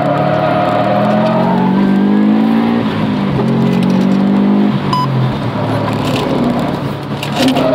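Car engine heard from inside the cabin, revving up through a gear, changing up about three seconds in and pulling again, then lifting off about five seconds in and running lower.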